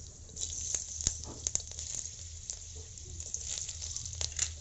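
Chopped garlic, a dried red chilli and black cumin seeds sizzling in a little hot oil in a kadai, with irregular sharp pops and spits.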